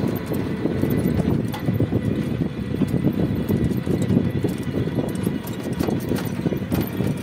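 Ride noise from the vehicle carrying the camera: a steady low rumble with frequent irregular knocks and rattles as it travels along the road.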